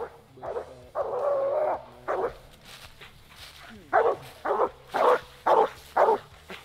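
Walker coonhound barking: short barks, a longer drawn-out call about a second in, then a steady run of short barks about two a second. This is a hound barking treed at a raccoon up a tree.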